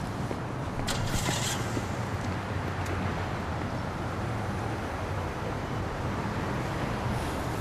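Steady low rumble of road traffic, with a brief hiss about a second in.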